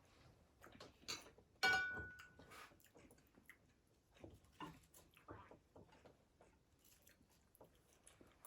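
Chewing and biting of fried food: scattered soft clicks and crackles. About one and a half seconds in, one loud sharp clink that rings briefly.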